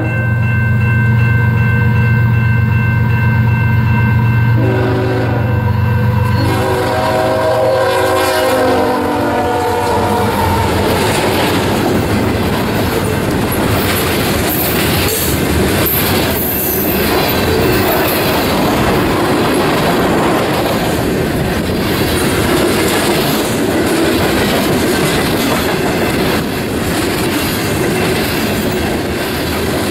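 Canadian Pacific ES44AC freight locomotive blowing its horn as the train approaches, in long blasts with two short breaks. After about ten seconds the horn stops and the train passes close by: a long string of loaded covered hopper cars rolling past with wheels clicking over the rail joints.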